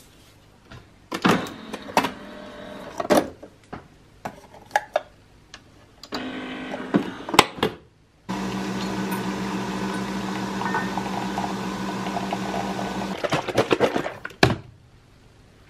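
Nespresso Vertuo coffee machine brewing: a few clicks and knocks as the capsule goes in and the head closes, then a loud steady motor hum with a fixed pitch. The hum starts about eight seconds in, runs about five seconds and stops, followed by a short clatter of handling.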